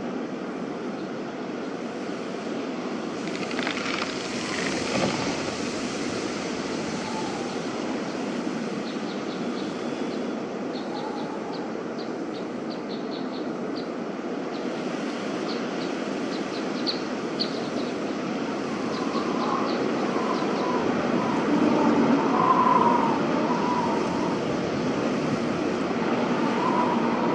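Snowy outdoor ambience recording: a steady, even wash of noise, with a run of faint high ticks in the middle and a few faint short calls near the end.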